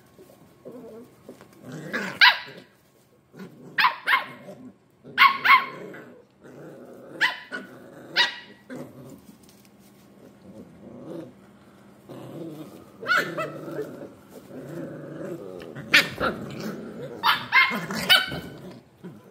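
Scottish Terrier puppies play-fighting: steady low play-growling broken by short, sharp, high-pitched yips and barks every second or so, coming thicker near the end.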